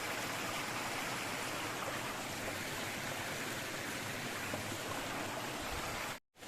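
Waterfall rushing, a steady loud hiss of falling water that cuts off abruptly near the end.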